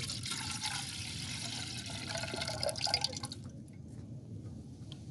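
Water poured from a plastic bottle into an MSR camping pot, a steady splashing fill that stops about three and a half seconds in.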